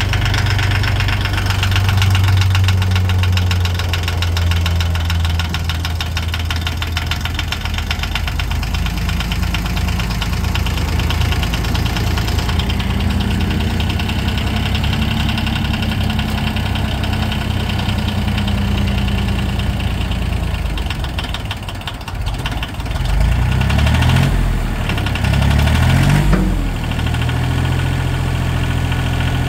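Compact tractor engine running steadily with a knocking clatter while the front loader raises its bucket. About two-thirds of the way in the engine pitch dips and climbs a few times and grows louder for a few seconds, then settles back to a steady run.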